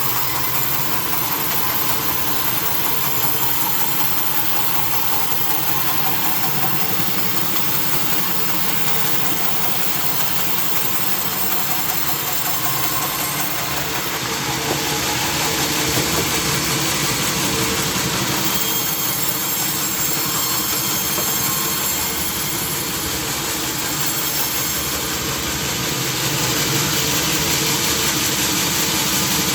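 Sawmill saw machinery running with a steady engine-like drone under a broad hiss. The hiss brightens about halfway through and again near the end.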